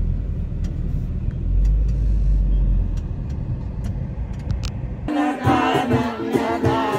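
Low, steady rumble of a moving car. About five seconds in it cuts abruptly to live music with a singer.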